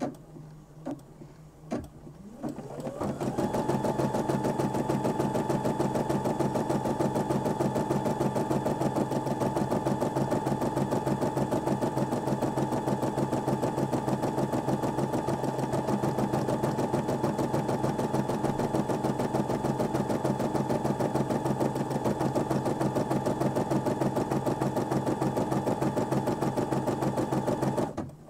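Brother M280D embroidery machine stitching out the next section of an embroidery design. After a few light clicks its motor speeds up with a rising whine about two and a half seconds in, then runs at a steady high stitching speed with a rapid, even needle rhythm. It stops abruptly just before the end.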